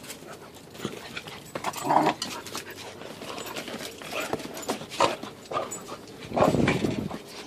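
Two dogs play-fighting close to the microphone: panting, scuffling and mouthing, with irregular bumps and two louder bursts, about two seconds in and near the end.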